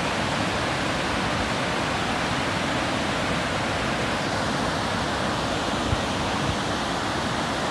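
Cummins Falls, a large waterfall on the Blackburn Fork river, pouring into its plunge pool: a steady, unbroken rush of falling water.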